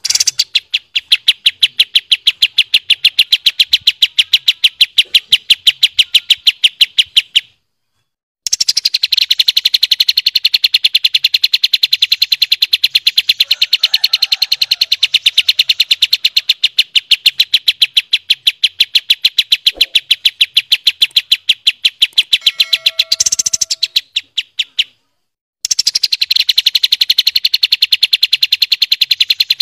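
Songbird giving a long, rapid trill of sharp, evenly repeated high notes, about seven a second. The trill breaks off twice for about a second and starts again, and a brief lower steady whistle sounds a little before the second break.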